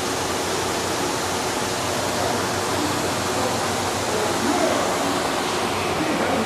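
Steady, even rushing noise with no change in level.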